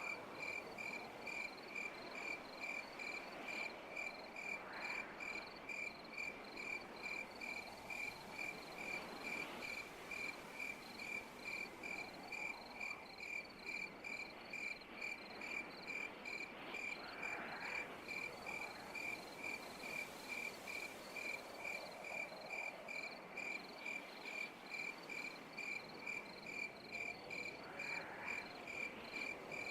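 A cricket chirping steadily, a short high-pitched chirp about twice a second, over a soft background hiss.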